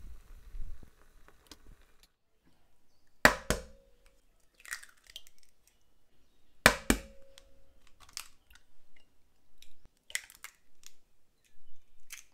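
Eggs cracked one after another on the rim of a glass bowl: each is a sharp double knock that sets the glass ringing briefly, followed by the soft crackle of the shell being pulled apart. It happens about every three seconds, three times, with a last light click near the end.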